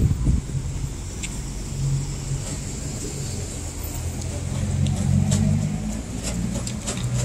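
City street traffic: a car engine running with a low hum that swells about halfway through, and a few light clicks near the end.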